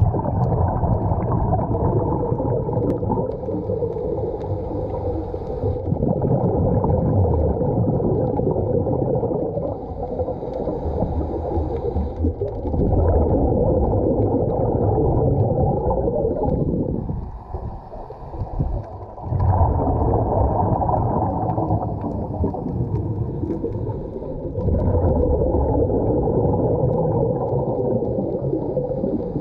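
Muffled underwater sound through an action camera's waterproof housing: a dull rush and bubbling that swells and eases every several seconds, with a faint hiss between the loud stretches and a brief drop about two-thirds of the way through.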